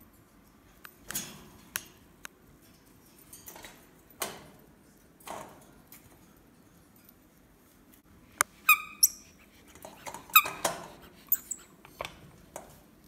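Capuchin monkey giving a few short, high, squeaky calls that fall in pitch, mixed with sharp knocks and rattles of its metal wire cage as it grabs at a plush toy through the bars. The calls and the loudest knocks come in the second half.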